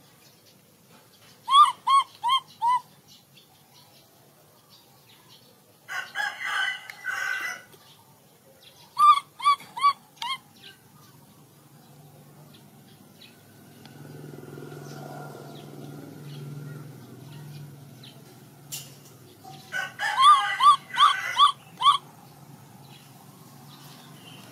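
An animal giving short, high chirping calls in quick runs of four or five, four times: about a second and a half in, around 6 s, around 9 s, and a longer run near 20 s.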